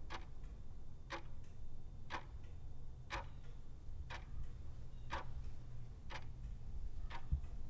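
Clock ticking steadily, one sharp tick a second, eight in all, over a low steady hum.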